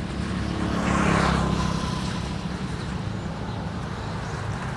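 A steady engine hum with a low, even drone, with a brief swell of rushing noise about a second in.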